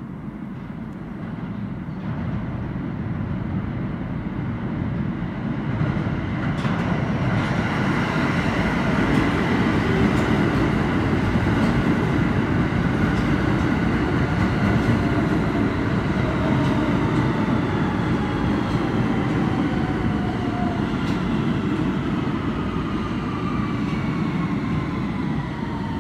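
New York City subway train running, with a rumble of wheels on rail that builds over the first several seconds and then holds steady. In the second half a motor whine falls steadily in pitch as the train slows.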